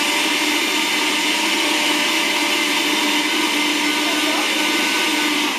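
Countertop blender running at a steady speed, blending milk and vanilla extract. Its motor is switched off at the very end, the pitch starting to fall as it winds down.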